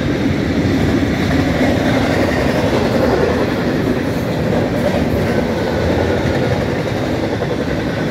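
Intermodal freight train of double-stack container well cars and trailer-carrying flatcars rolling past, a steady noise of steel wheels on rail.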